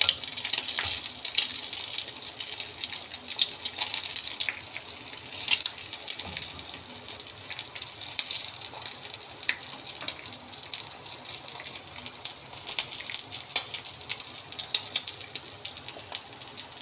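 Hot oil sizzling in a non-stick frying pan around chicken nuggets and a fried egg: a steady hiss full of small crackling pops.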